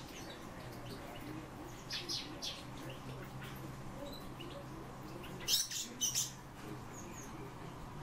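Captive songbirds chirping: a few short, sharp chirps about two seconds in, then a louder cluster of chirps a little past the middle, over a faint steady low hum.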